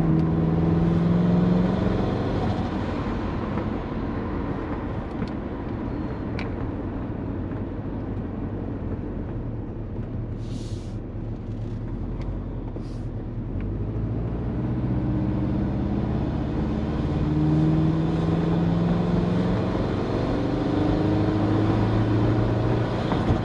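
Turbocharged Subaru Forester with a large GT35 turbo and an automatic gearbox on the move. The engine pulls at first, then settles to a quieter steady cruise in the middle with two short hisses. It builds again in several rising pulls toward the end.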